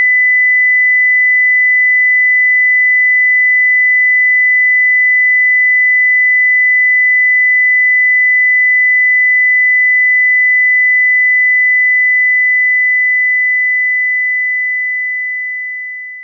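Synthetic fire alarm test tone: a single continuous steady pitch at about 2 kHz, played to trigger the acoustic mode of a Dorgard Pro fire door retainer's transmitter. It fades out over the last few seconds.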